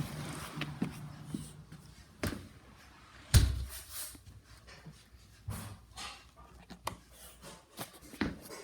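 A door closing with a loud thump about three and a half seconds in, with lighter knocks and clicks around it.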